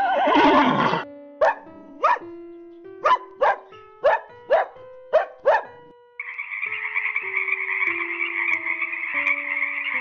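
A horse's whinny tailing off in the first second, then a dog barking eight times in short sharp barks. From about six seconds a frog croaks in one continuous fast-pulsing call. A simple music track plays underneath.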